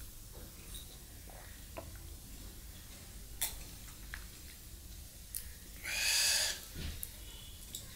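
A few small clicks and smacks of eating by hand from a steel plate. About six seconds in, the eater gives a short, breathy, whistling exhale through the open mouth.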